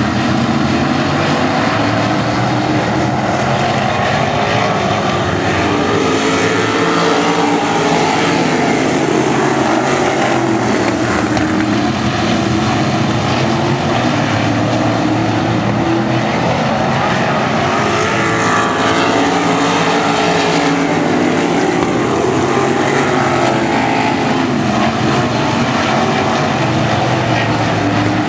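A field of RaceSaver sprint cars with 305 cubic-inch V8 engines racing at full throttle, several loud engines running together, their overlapping notes rising and falling as the pack goes round the track.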